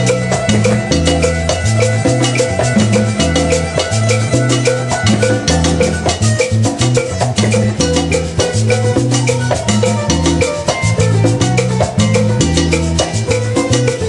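Live salsa band playing, with a moving bass line under dense, busy percussion.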